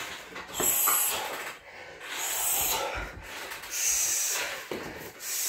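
A man breathing hard, with about three heavy hissing breaths roughly a second and a half apart: winded between sets of heavy-bag kicks.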